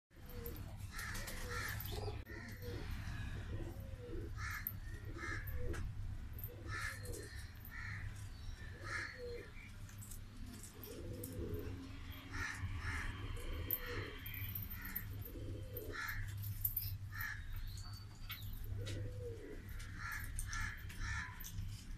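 Domestic pigeons cooing: a string of short coos, each rising and falling in pitch, repeated every second or so.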